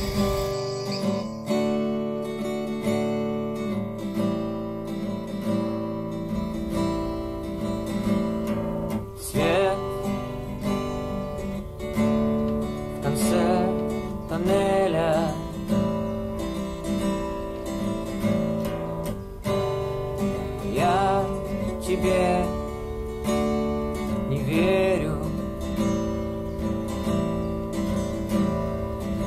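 Acoustic guitar strummed in slow, steady chords, with a few long, wavering sung notes over it now and then.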